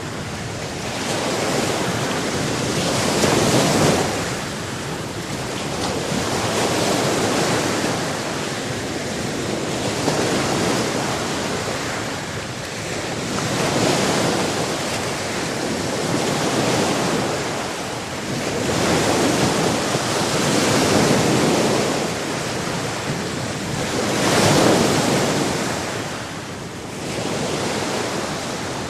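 Sea waves breaking and washing on a shore, a steady rush of water that swells with each wave about every three to four seconds.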